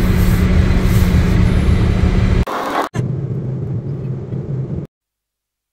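A motor vehicle running, loud and steady with a low engine hum, cut off about two and a half seconds in. A quieter stretch of vehicle hum follows, then the sound drops out completely near the end.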